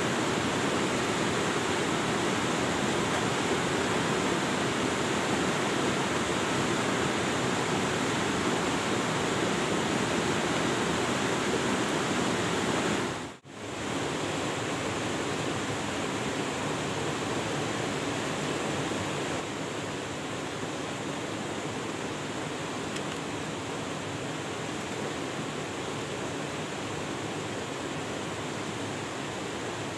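Steady rushing, hiss-like noise of running water, like a nearby stream or small waterfall. It dips out briefly about halfway through and is a little quieter in the second half.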